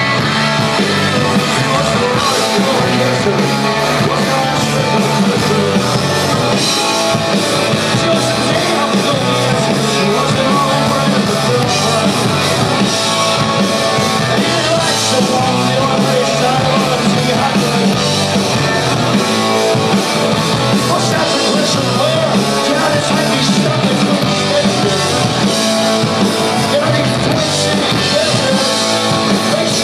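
Rock band playing loud and live, with electric guitars, bass and drum kit, in an instrumental stretch without lead vocals, heard from within the club crowd.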